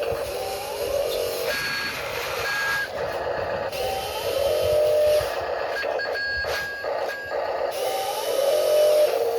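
Small electric motors of RC construction models whining as they work, each run opening with a short rise in pitch before settling into a steady whine, with short high beep-like tones in between.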